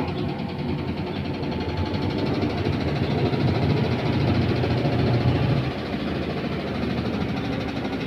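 Whirlpool LSP1080GP top-load washing machine on its spin cycle: a steady hum of the motor and spinning drum. There is no banging, with the drum holder's missing screws replaced and the loose ones tightened.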